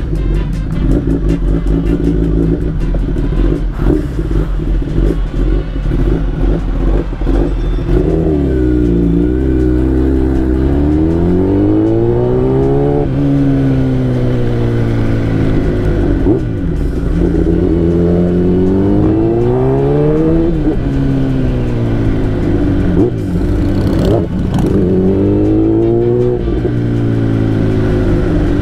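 Kawasaki ZX-10R sportbike's inline-four engine heard from the rider's seat, running steadily at first, then the revs climb, drop sharply and climb again several times as the bike pulls away and shifts up, before settling to a steady cruise.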